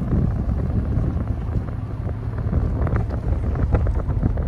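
Steady low rumble of a car driving along a road, with wind buffeting the microphone.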